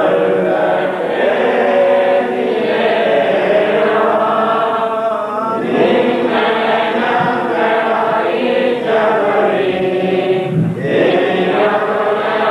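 Church choir singing a slow liturgical chant of the Holy Qurbana together, with long held, gliding notes.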